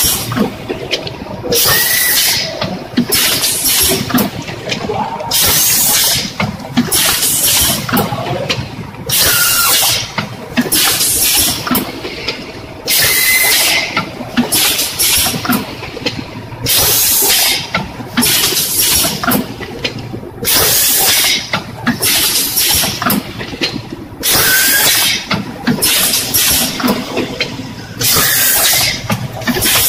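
Rotary premade-pouch packing machine running in its cycle: sharp hisses of compressed air from its pneumatic valves, about one every one and a half seconds, over steady machine clatter.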